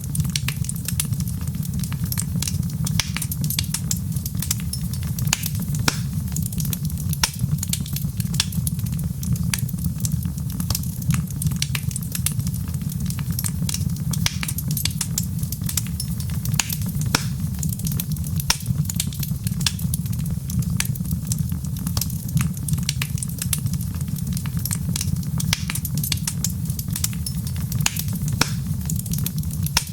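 Wood fire crackling, with frequent sharp irregular pops and snaps over a steady low rumble.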